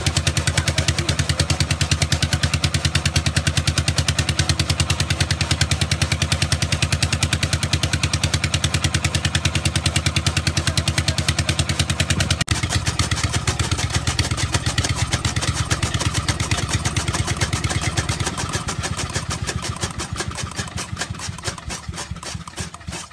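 Old stationary diesel engine running with a rapid, even beat, driving a belt-driven chaff cutter that chops green fodder. Over the last few seconds the engine slows and its sound fades as it runs down.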